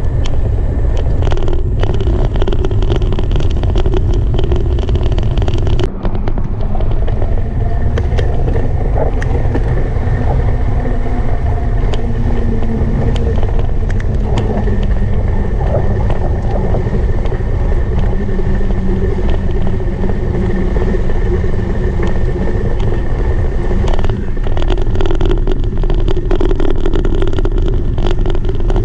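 Steady wind rumble on the microphone, with rolling noise from travelling along a paved trail. Near the end a denser run of ticks comes in as it crosses onto the wooden plank deck of a footbridge.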